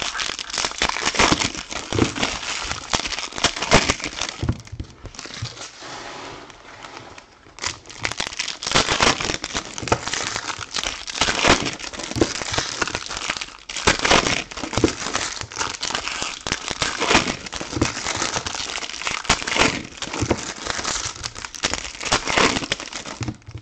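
Foil trading-card pack wrappers crinkling and crackling as hands tear and handle them, with sharp clicks from the cards. It eases off for a couple of seconds about five seconds in, then picks up again.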